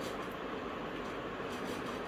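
Steady background hiss, with a few faint light clicks in the second half as a plastic E27 bulb socket holder and its cord are handled.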